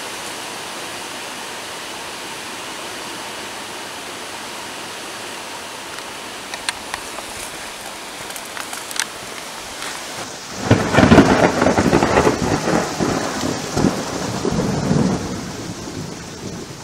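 A steady hiss of background noise, then about ten seconds in a loud thunderstorm sound starts suddenly: rumbling, crackling thunder over rain, easing off near the end.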